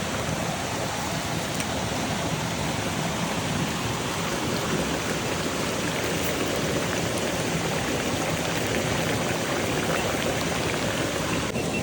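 Steady rain falling, an even hiss without distinct drops or other events.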